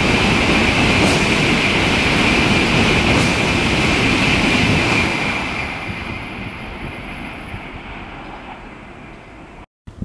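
Tokaido Shinkansen train passing at high speed, a loud steady rush of wheels and air that fades after about five seconds as the train pulls away. The sound cuts off abruptly just before the end.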